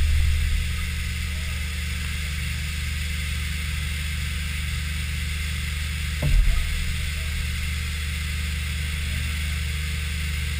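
Haas VF-3SS CNC vertical mill cutting aluminum under flood coolant: a steady machine hum with the hiss of coolant spray. There is a brief louder burst about six seconds in.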